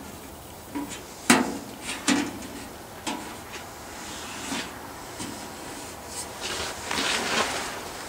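Handling noise from a sheet-copper birdhouse being worked by hand: a few sharp knocks and clacks, the loudest about a second in, then a stretch of rubbing near the end.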